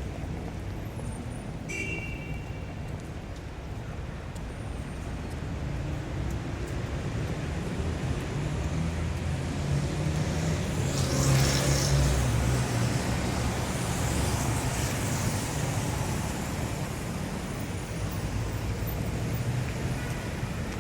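City street traffic: a steady rumble of engines from passing cars and heavier vehicles. It builds to the loudest pass about halfway through, a vehicle going by close with a burst of hiss, then eases off. A short high squeak comes about two seconds in.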